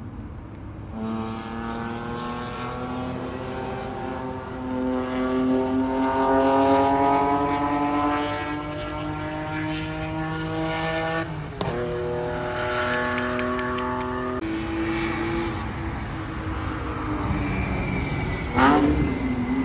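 Race car engine on track, the note climbing steadily under hard acceleration, then snapping down at a gear change a little past halfway. It pulls again, drops in pitch about three-quarters of the way through, and swoops quickly down and back up near the end.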